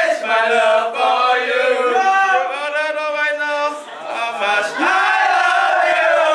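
Male voices singing loudly together in long held phrases, with short breaks between them.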